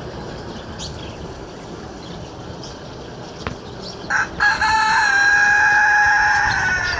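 A rooster crowing: a short opening note about four seconds in, then one long held call of about two and a half seconds that dips slightly at the end, over a steady background hiss.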